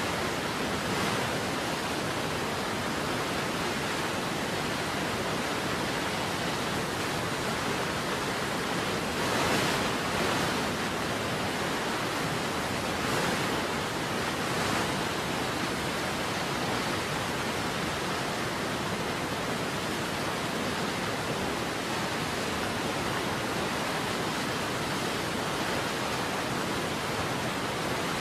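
Waterfall rushing: a steady, even wash of falling water with no pauses, swelling slightly twice near the middle.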